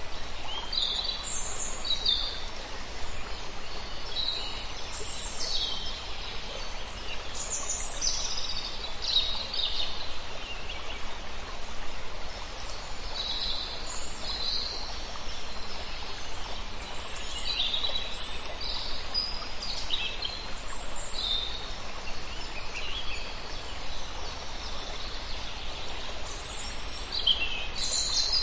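Birds chirping and calling in short, high calls scattered throughout, over a steady background hiss of outdoor ambience.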